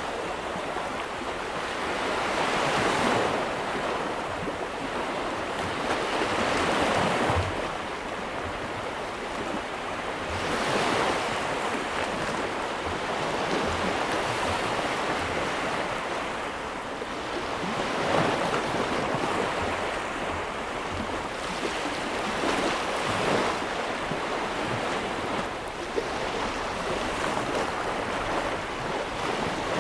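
Ocean waves breaking and washing up a beach, in surges every few seconds over a steady rush of surf, with some wind on the microphone.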